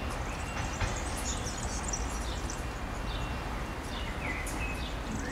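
Small birds chirping, with short high calls scattered throughout, over a low steady rumble from a Desiro diesel railcar moving away into the distance.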